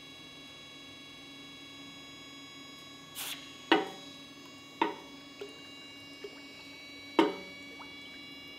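Hot axe head quenched in a steel water trough: a brief splash about three seconds in, then three sharp knocks as the steel meets the trough, with a few lighter taps between.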